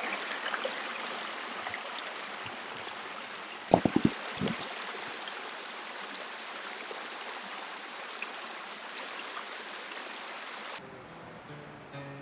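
Ozark mountain creek running over rocks, a steady rush of water, with a quick cluster of loud knocks about four seconds in. Near the end the water sound cuts off abruptly and faint music tones come in.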